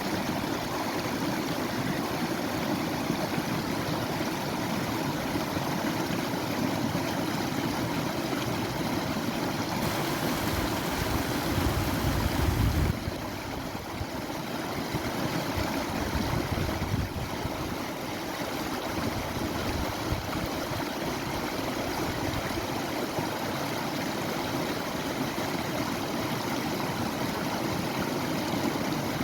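Steady rush of flowing water. It grows louder and fuller about ten seconds in, then drops suddenly a few seconds later.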